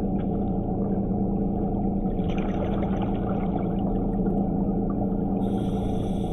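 DiveX Blacktip underwater scooter's electric motor running steadily underwater, a constant hum, with a short hissing rush near the end.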